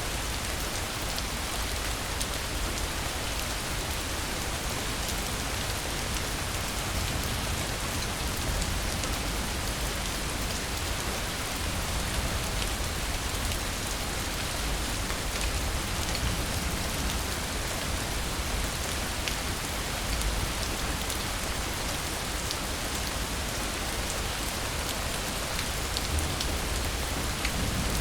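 Steady rainfall, an even hiss with scattered individual drops ticking on a surface.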